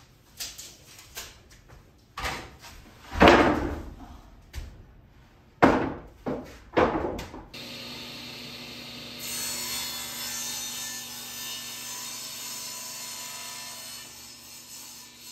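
A wooden board knocking and scraping as it is handled and positioned on a table saw, several separate knocks over the first half. Then the table saw switches on and runs steadily with a low hum, a brighter hiss joining about two seconds later as the blade cuts the board, before it winds down at the end.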